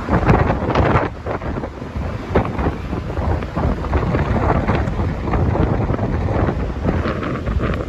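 Wind buffeting the microphone on the open deck of a ship at sea: a loud, deep, gusting rumble that surges hardest in the first second or so.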